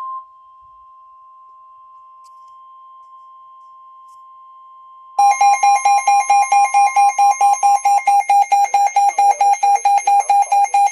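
Emergency alert tones between weather radio warnings: a steady single-pitch alarm tone, the weather radio warning alarm tone, that drops to a lower level just after the start. About five seconds in, a much louder electronic alarm joins it, beeping rapidly at about four to five beeps a second.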